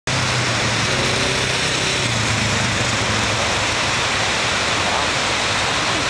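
Ocean surf breaking on a beach: a loud, steady rushing noise with no distinct bird calls standing out.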